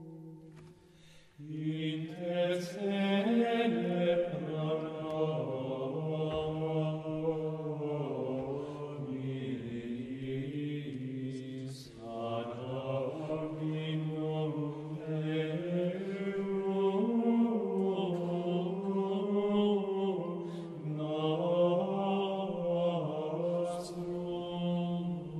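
Gregorian chant sung in unison by a choir of men's voices, held phrases on a steady reciting pitch with gentle bends. There is a short breath break about halfway through.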